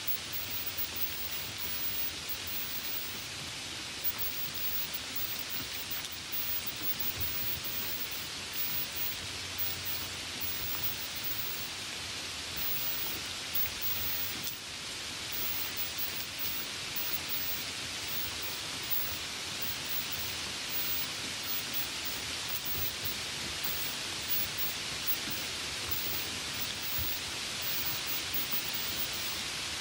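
Steady light rain: an even hiss of falling drops, with a brief dip in level about halfway through.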